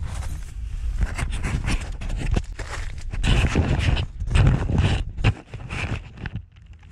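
Close, irregular rustling and crinkling of a dome tent's fabric and plastic groundsheet, with knocks and rubbing from a hand handling the camera right against it; it quietens near the end.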